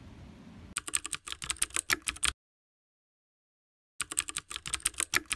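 Rapid computer-keyboard typing clicks, added as a sound effect, in two runs of about a second and a half each with dead silence between them. Faint background hiss comes before the first run.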